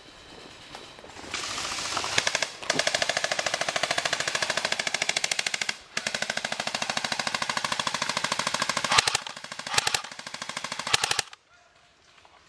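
Airsoft electric rifle firing on full auto: a long rapid burst starting about a second in, a brief pause, a second long burst, then a few short bursts that stop suddenly near the end.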